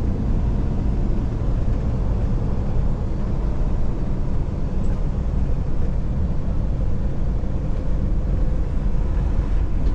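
Steady low drone of a semi truck's engine and drivetrain, heard from inside the cab.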